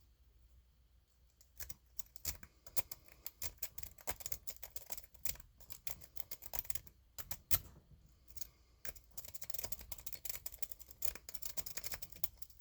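A lock-picking rake scrubbed in and out of the keyway of a brass Wilson Bohannan padlock under tension: rapid, irregular metallic clicking of the rake against the pin tumblers. It starts about a second and a half in, pauses briefly twice, and gives one louder click about halfway.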